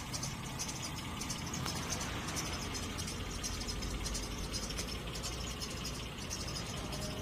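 Outdoor ambience: a steady low rumble under a rapid, evenly pulsing high chirping of insects.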